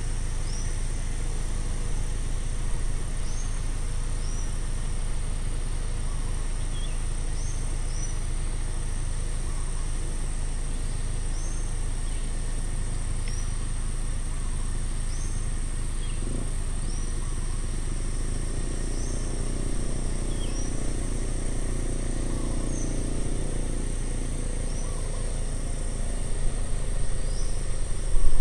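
Outdoor ambience: a steady high insect drone and a bird repeating a short chirp every second or two over a constant low rumble. A vehicle passes in the second half, growing louder near the end.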